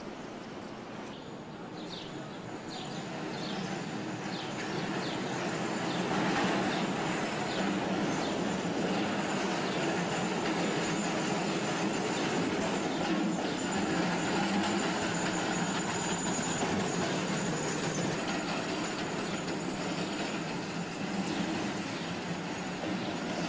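Vintage streetcar running on street track, its wheels rumbling on the rails. The sound swells over the first several seconds as the car comes close, then holds steady as it passes and moves off.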